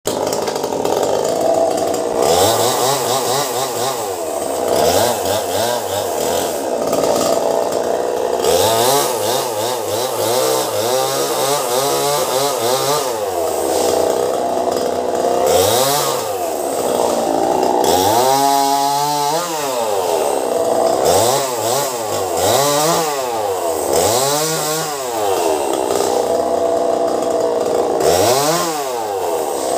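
Two-stroke chainsaw cutting tree limbs, its engine revving up and dropping back over and over.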